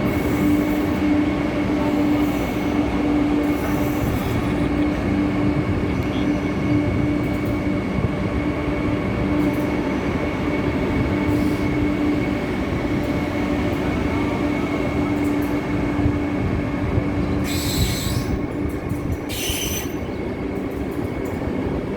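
Vande Bharat Express electric trainset rolling out of the station: a steady rumble of wheels on rail with a steady motor hum, and two short hisses near the end.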